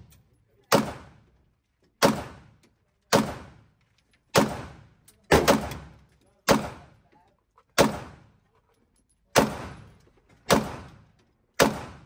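Gunshots at an indoor shooting range, about eleven fired one at a time at roughly one a second, with two close together near the middle. Each sharp crack is followed by a short echoing decay.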